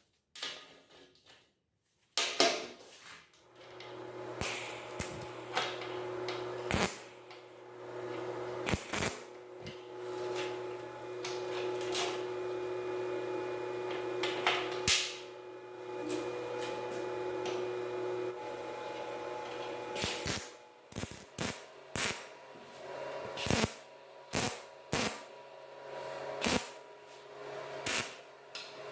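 Workshop work on metal: repeated sharp knocks and clanks of tools and metal parts, over a steady low machine hum that runs from a few seconds in until about two-thirds of the way through.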